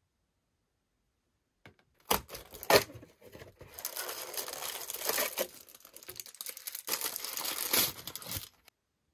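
White tissue paper crinkling and rustling as a wrapped toy figure is pulled from a cardboard compartment and unwrapped. It starts about two seconds in, with sharper crackles near the start and again near the end.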